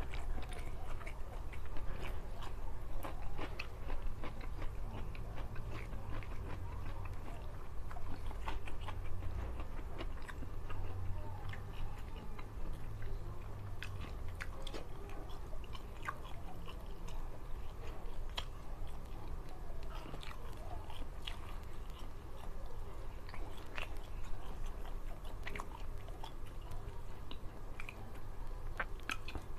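Close-miked chewing and biting by a man eating rice and soy-sauce tuna with his hands, with many short wet mouth clicks and occasional crunchy bites of raw vegetables.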